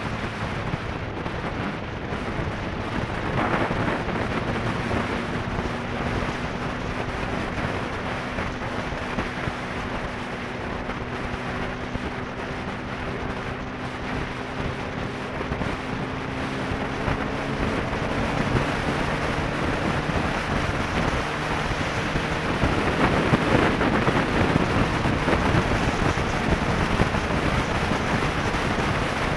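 Heavy wind rush on a sport bike's camera microphone at road speed, over the bike's engine running at a steady cruise, its note drifting slightly in pitch. The wind noise grows louder over the last few seconds.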